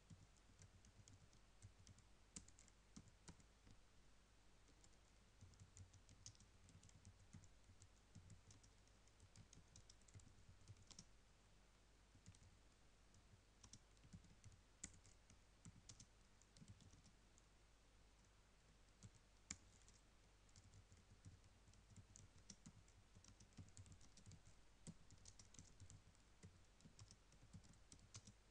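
Faint typing on a computer keyboard: irregular runs of keystrokes broken by a few short pauses.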